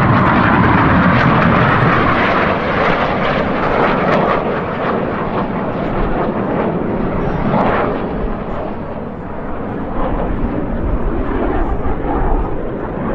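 Jet noise from BAE Hawk T1 jets' Adour turbofan engines flying an aerobatic display overhead. It is loudest in the first two seconds, then continues steadily at a slightly lower level.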